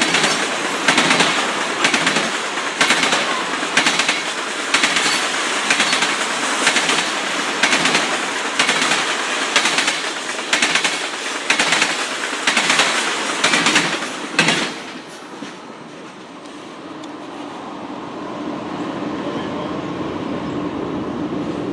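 Loud rhythmic mechanical clatter, about one beat a second, breaking off sharply about fourteen seconds in and giving way to a quieter steady hum.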